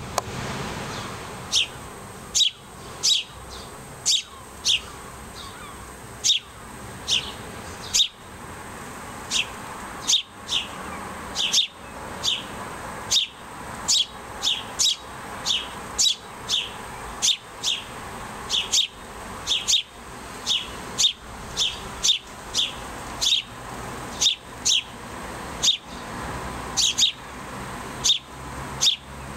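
House sparrow fledglings begging for food with insistent, repeated cheeps, about one to two a second, each a short sharp note falling in pitch.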